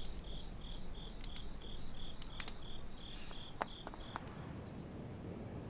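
Crickets chirping in an even, high-pitched rhythm of about four to five chirps a second over low background noise, with a few faint clicks; the chirping stops about four seconds in.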